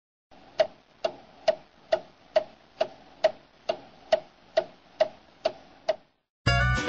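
Steady ticking: twelve even, sharp clicks a little over two a second over a faint hiss. After a short silence, music starts just before the end.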